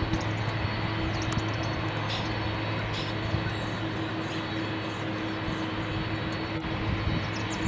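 Boeing 767 jet engines running steadily at taxi power: an even rush of noise with a constant low hum.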